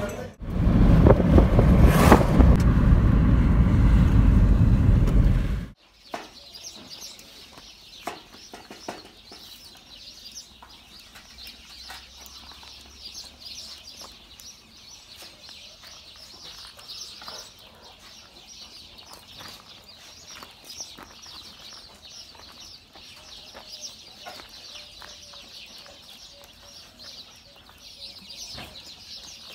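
A loud rush of noise that cuts off abruptly about six seconds in, followed by quiet outdoor ambience: a steady high-pitched hiss with scattered soft clicks and bird or poultry calls.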